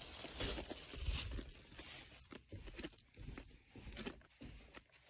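Faint rustling and scuffing from a hand-held phone being carried while walking, with soft irregular footsteps; the strongest thump comes about a second in.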